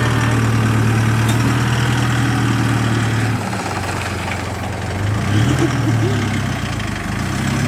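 A four-wheel drive's engine running steadily as it drives along a bush track, its pitch wavering briefly about five seconds in.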